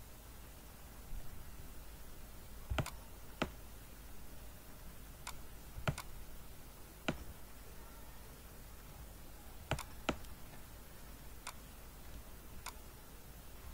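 Computer mouse clicking: about nine sharp single clicks at irregular intervals, over faint background hiss.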